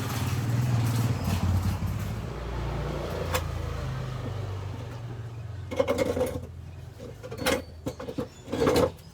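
Small boat engine with a newly fitted carburetor running steadily, then dying away about six to seven seconds in. A few short clicks and knocks follow near the end.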